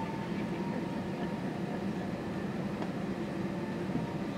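Steady low cabin drone inside an Airbus A320-family airliner on the ground before takeoff: engines at idle and cabin air running.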